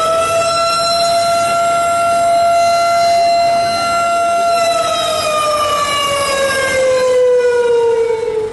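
A siren wail: one loud, steady tone held for about four and a half seconds, then slowly falling in pitch for the rest of the time.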